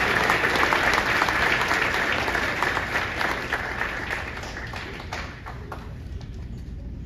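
Audience applauding, the clapping dying away over the last few seconds to a few scattered claps.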